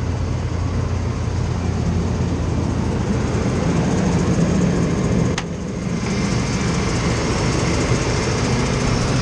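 1992 Chevy K1500's 4.3-litre V6 with throttle-body injection idling steadily through a Cherry Bomb muffler, running smoothly. A single sharp click about five seconds in as the hood latch is released and the hood is raised.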